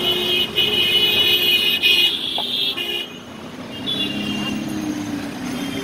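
Street traffic with vehicle horns honking: one long horn note for the first few seconds, then shorter horn notes again about four seconds in and near the end.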